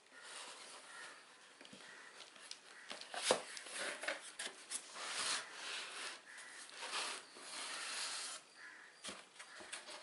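Cardboard scraping and rubbing against cardboard as a boxed coffee maker is worked up and out of a corrugated shipping carton, with a sharp knock about three seconds in.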